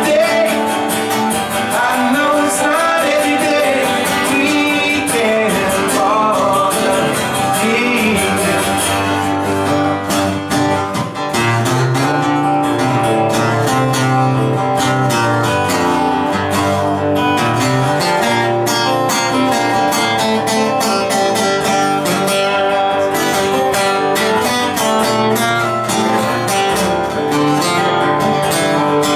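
Two acoustic guitars played live together, one strumming the chords while the other plays picked lead lines.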